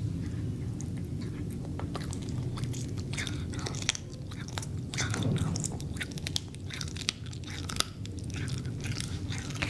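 Cat chewing and biting a raw gizzard, with many short wet clicks and crunches from its teeth. A steady low hum runs underneath.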